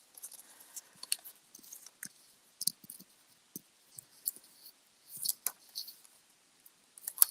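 Scattered light clicks and crackles of glue dots being picked off their paper backing, with a few sharper clicks about five seconds in and just before the end.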